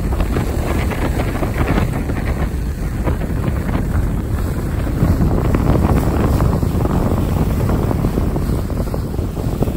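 Wind buffeting the microphone over the rushing and splashing of a Contessa 32 sailing yacht's bow wave as it sails fast through choppy sea.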